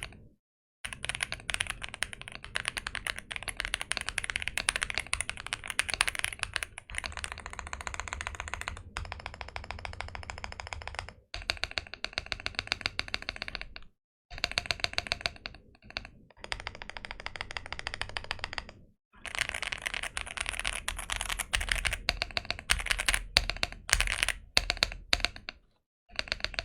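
Fast typing on a Sugar65 gasket-mounted aluminium 65% mechanical keyboard with Leobog Greywood V4 linear switches and PBT keycaps, its stabilizers tuned and its case tape- and polyfill-modded. The keystrokes come in long runs separated by short pauses, with some louder strokes near the end.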